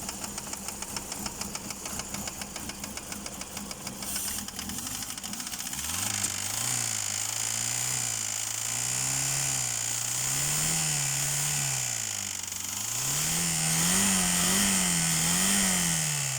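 Chery Elara 2.0 engine idling with a rapid, even knock, then revved up and down several times from about six seconds in. The knock is something the owner likens to a hydraulic lash adjuster (lifter), with the oil pressure warning light off.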